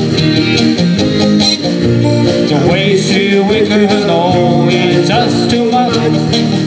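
Live band music: electric and acoustic guitars strumming over a drum kit, with a harmonica playing a wavering melody line.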